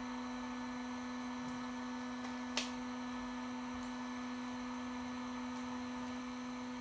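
Steady electrical hum on one low pitch with higher overtones, with a few faint clicks and one sharper click about two and a half seconds in.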